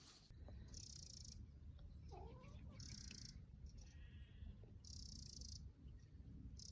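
Near silence: a faint low rumble, with a short high-pitched buzz repeating about every two seconds.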